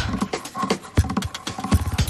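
Irregular light taps and knocks, a few a second, with a couple of brief pitched sounds among them.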